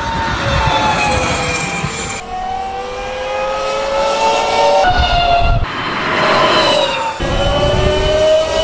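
Techrules turbine-electric supercar prototype driving past: a high-pitched whine that falls, then rises in pitch as it speeds up, in several spliced clips that cut off abruptly.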